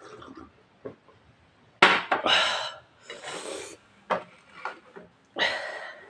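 Dishes and tableware being handled on a table after a meal: a few sharp knocks and three scraping, rubbing sounds of about half a second to a second each.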